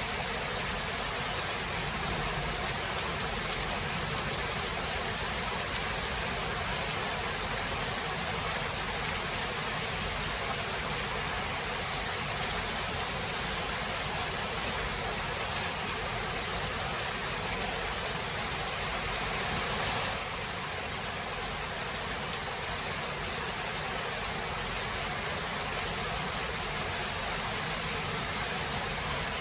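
Steady rainfall, an even hiss with a few faint sharp drop ticks; the level dips slightly about two-thirds of the way through.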